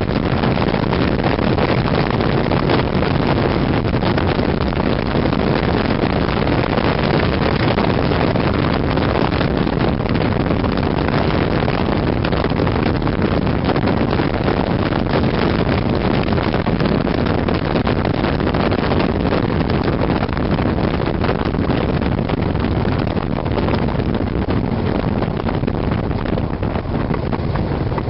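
Steady wind rush on the microphone of a motorcycle sidecar moving at road speed, with the motorcycle's engine running underneath; the highs ease off a little near the end.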